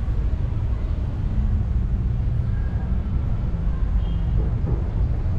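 Steady low rumble of outdoor city background noise, with a couple of faint, brief high tones.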